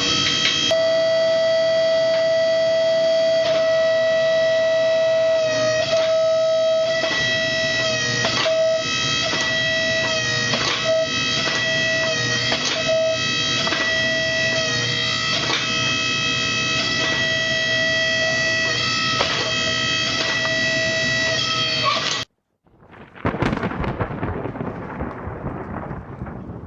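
Music with a steady held drone note under a changing melody, bagpipe-like. It cuts off suddenly about 22 seconds in, and a burst of rumbling noise follows and slowly fades.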